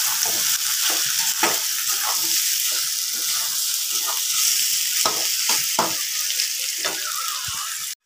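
Chicken and vegetables sizzling in hot oil in a steel kadai, with a steel spatula stirring and scraping against the pan in irregular strokes. The sound cuts off abruptly at the very end.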